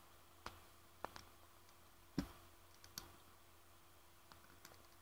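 A few short computer mouse clicks, spaced irregularly, the loudest about two seconds in, over a faint steady hum.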